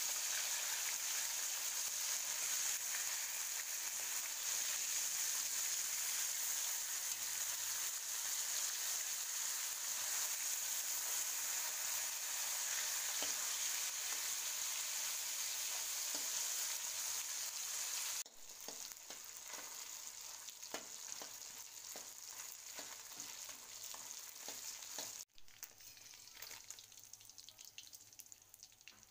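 Fish heads frying in hot oil in a metal wok: a steady, loud sizzle. About 18 seconds in it drops suddenly to a softer sizzle with scraping clicks of a metal spatula stirring, and drops again a few seconds later.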